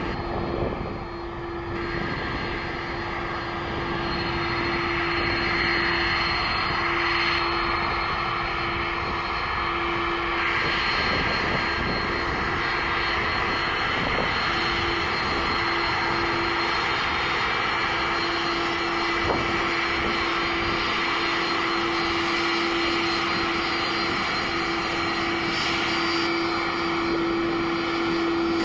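Airbus A330-300 jet engines running at high power on departure: a steady, loud roar with a steady droning tone in it.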